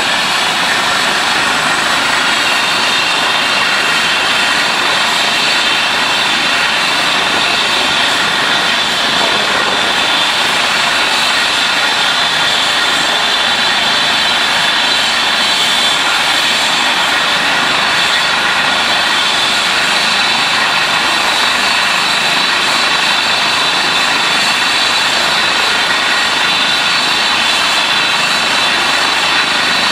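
Trauma helicopter of the Eurocopter EC135 type running on the ground, its turbines giving a steady high whine over the rush of the turning rotor, with no change in pitch or level.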